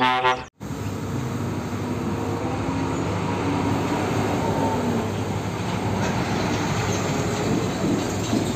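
A brief pitched tone that cuts off abruptly about half a second in, then the steady rumble of a heavy diesel truck's engine and road noise.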